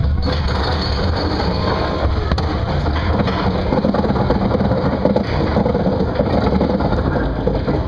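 Steel roller coaster train climbing its chain lift hill: a steady, loud mechanical clatter of the lift chain and track under the cars.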